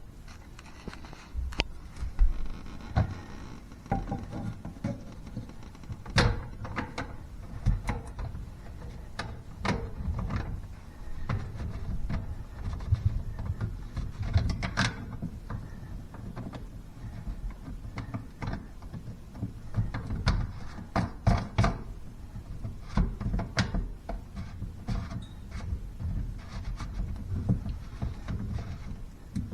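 Scattered knocks, clunks and clicks of plumbing parts being handled under a bathroom sink, with rustling in between.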